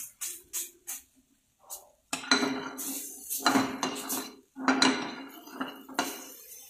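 Steel ladle scraping and clanking against a stainless-steel frying pan, stirring a thick cheese and mushroom sauce, in repeated strokes with a short pause about a second in.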